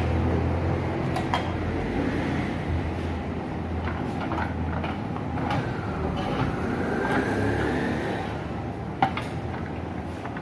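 Steady low engine rumble in the background, with a few metallic clinks as the aluminium crankcase halves of a motocarro engine are handled and fitted together; the sharpest clink comes near the end.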